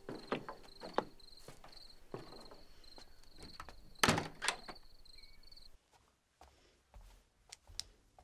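Footsteps and knocks around a wooden door, then the door banging shut with two sharp thuds about four seconds in. After that the sound drops suddenly to a quieter room with a few light steps.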